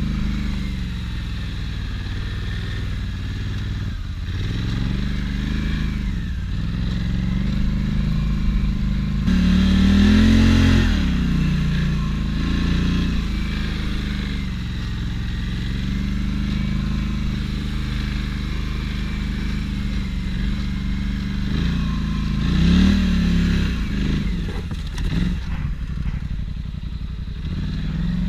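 ATV (quad bike) engine running under load off-road, its note rising and falling with the throttle. The biggest rev-ups come about ten seconds in and again about twenty-three seconds in.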